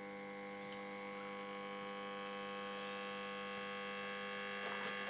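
1947 STC Bantam C141 valve radio buzzing through its speaker as it powers up: a steady mains hum that grows slowly louder as the HT voltage is brought up, with no station coming through.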